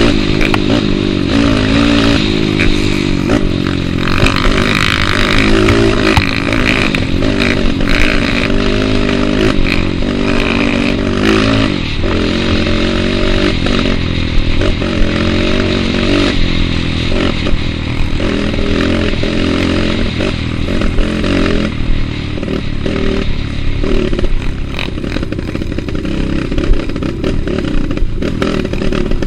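Trail motorcycle engine running under way, its pitch rising and falling with the throttle, with rattling and clattering over rough ground.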